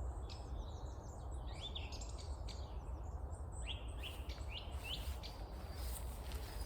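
Several small woodland birds calling, a busy run of short high-pitched chirps and quick rising and falling notes, over a low steady rumble of wind or distant noise.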